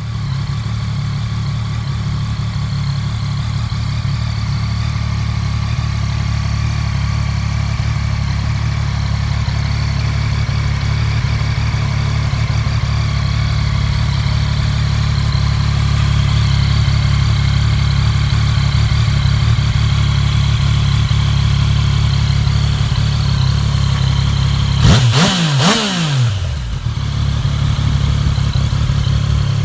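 2018 Yamaha Tracer 900 GT's three-cylinder engine idling steadily, with two quick blips of the throttle near the end before it settles back to idle.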